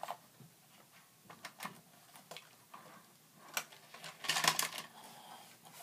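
Plastic clicks and rattles from a Hot Wheels Blaster Rig toy truck being handled as its launch lane is switched: scattered light clicks, with a short run of rattling clicks about two-thirds of the way through.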